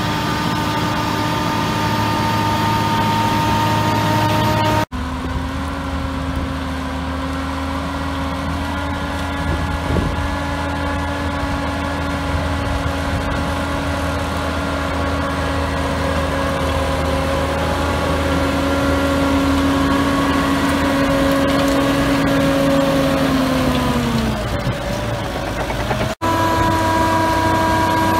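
Same Audax 220 tractor's diesel engine running steadily under load while driving a Maschio Aquila power harrow through dry soil. The engine's pitch falls about 24 seconds in as it eases off. Two brief dropouts, about five seconds in and near the end, mark cuts in the recording.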